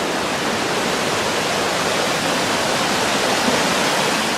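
Swollen river in flood, its water rushing past in a steady, even roar.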